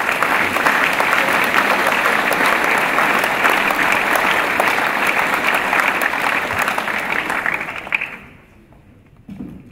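Audience applauding, a dense steady clapping that dies away about eight seconds in.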